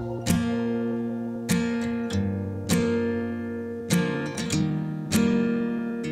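Background music: acoustic guitar strumming chords, each chord ringing out and fading before the next strum, roughly once a second.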